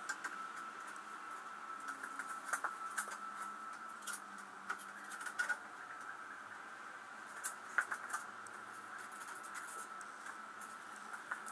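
Scattered light clicks and scrapes of hand tools working on the fan-to-water-pump bolts in a classic Mini's engine bay, over a steady faint high hum.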